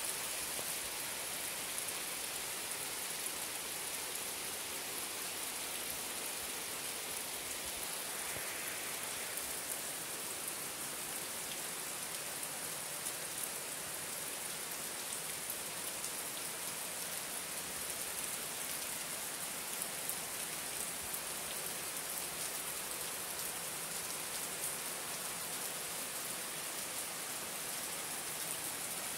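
Steady rain falling on trees and garden foliage, a constant hiss made of many fine drop ticks.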